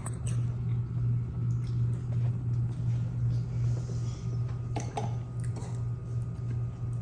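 A man chewing food, with a few small clicks about five seconds in, over a steady low hum that is the loudest sound.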